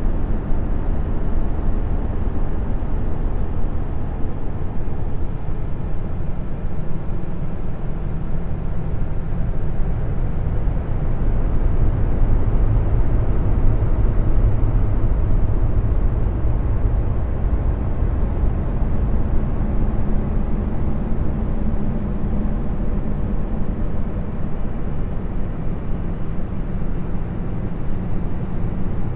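Low, steady rumbling noise drone of the kind posted as 'space sounds', presented as the sound of Jupiter's moon Callisto. It swells a little about halfway through.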